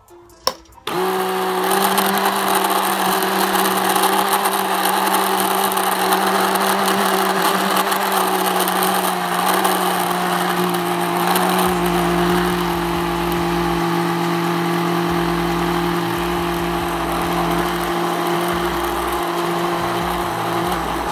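Electric stick blender switching on about a second in after a couple of clicks, then running steadily with a whirring whine whose pitch sags slightly as the blade works through thickened homemade condensed milk to smooth out lumps; it stops right at the end.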